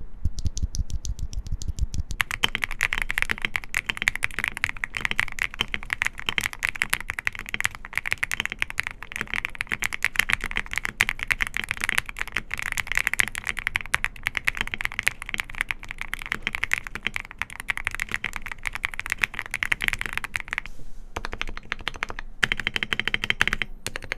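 Fast, continuous typing on a QK65 mechanical keyboard fitted with HMX x 80Retros XMAS linear switches, the keystrokes coming in a dense patter. The typing pauses briefly near the end, then resumes.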